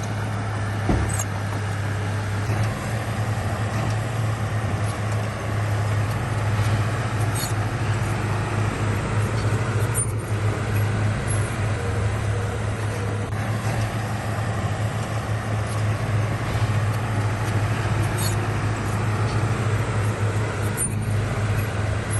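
Heavy diesel engine of earthmoving machinery (bulldozer or dump truck) running steadily with a deep, even drone, with a single sharp knock about a second in.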